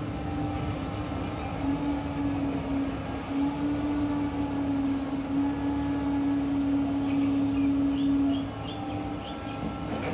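Volvo crawler excavator running steadily while it digs: a constant droning tone over a low engine rumble, dropping out briefly a few times.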